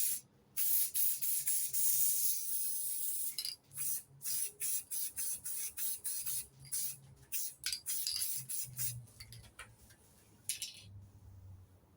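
Spray paint hissing out of an aerosol can onto the metal cooling fan of an MGB. It starts as one longer spray, then comes in about a dozen short quick bursts, with one last burst near the end.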